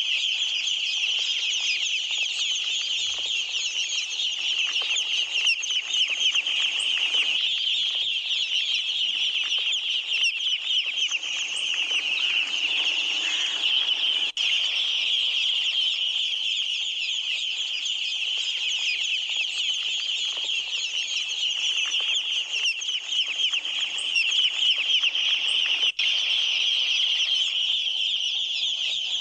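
A large flock of Khaki Campbell ducklings peeping together in a dense, unbroken chorus of high, rapid calls.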